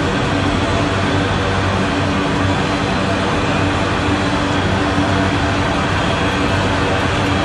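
Freight train of enclosed autorack cars rolling past close by: steady noise of steel wheels running on the rails, with a faint low hum and no breaks.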